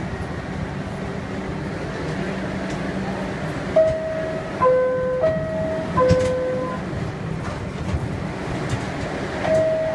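New York subway R62A car: the traction motors hum with a steady low tone as the train comes to a stop. Then a two-tone falling ding-dong chime sounds twice, and once more near the end.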